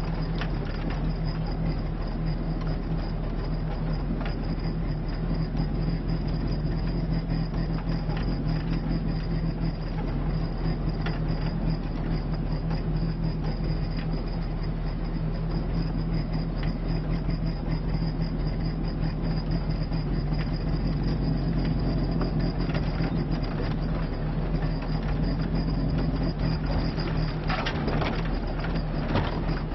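Lada Niva's engine running at a steady pace, heard from inside the cabin, with body and interior rattles and knocks as it drives over a rough dirt track; a cluster of louder knocks comes near the end.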